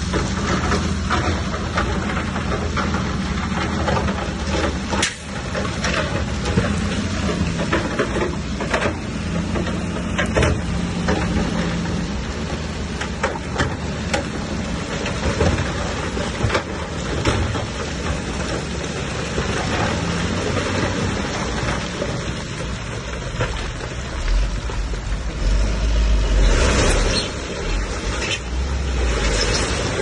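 Diesel engine of a large crawler bulldozer running steadily under load, with scattered knocks and clatter from its tracks and the stone being pushed. The engine grows louder and deeper in the last few seconds.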